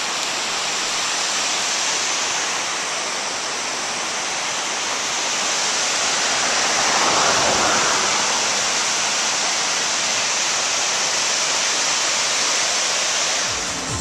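Steady rush of a waterfall's falling water, swelling a little about halfway through.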